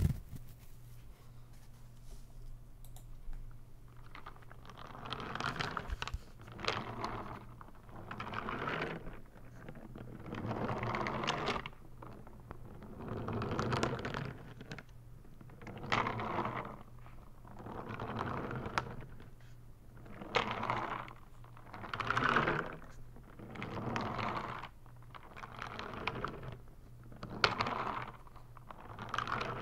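Loose brown filling sliding from end to end inside a clear bottle as it is tilted back and forth, a rushing, lightly clicking swell about every two seconds, starting a few seconds in.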